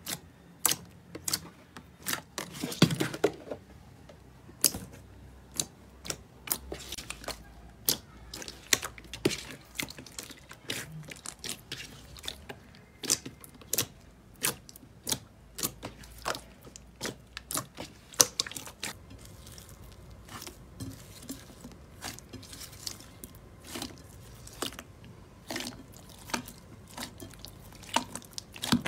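Hands squeezing and pressing a large mass of glossy slime, giving a run of irregular, sticky pops and clicks several times a second, with a longer squelch about three seconds in.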